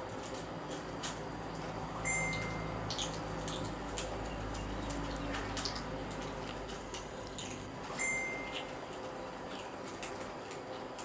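Several kittens crunching and chewing dry kibble from a shared bowl: a steady run of small, irregular clicks and crunches. A short, thin high tone sounds twice, about two seconds in and again near eight seconds.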